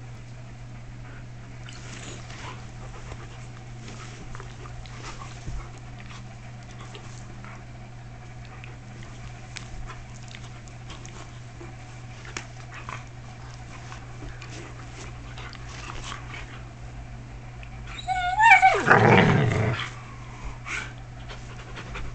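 Siberian husky puppies play-fighting on a bed: faint rustling and scuffling, then near the end one dog gives a loud, wavering growl-whine lasting about a second and a half.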